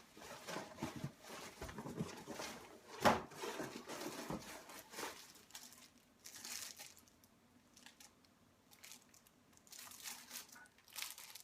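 Packaging rustling and crinkling as things are rummaged through and lifted out of a cardboard mystery box: irregular handling noises with a few sharper clicks, quieter for a few seconds in the middle.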